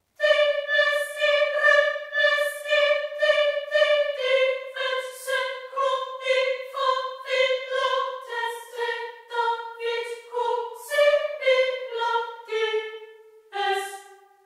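Music: a single high voice sings in an operatic style, a slow line of pulsing notes at about two a second, its pitch stepping gradually downward.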